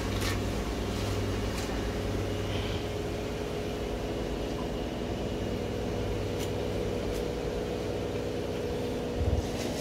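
Kitchen range hood fan running with a steady hum, along with a few faint clicks and a short low thump just before the end.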